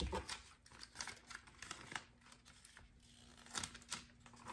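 Vinyl decal sheet and its paper backing crinkling and crackling in irregular little snaps as a small decal piece is peeled off by hand. The crackles are faint, with a small cluster at the start and another about three and a half seconds in.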